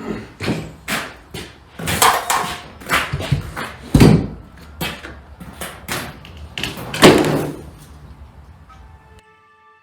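Digging in a dirt hole: a tool strikes and scrapes the earth walls in irregular blows, the heaviest about two, four and seven seconds in. Music starts near the end.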